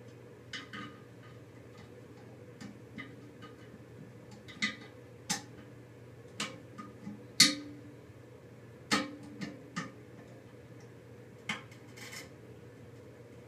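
Irregular clicks and knocks of hard plastic toilet parts and tools being handled during fill-valve work, about a dozen in all, the loudest about seven seconds in. A steady low hum runs underneath.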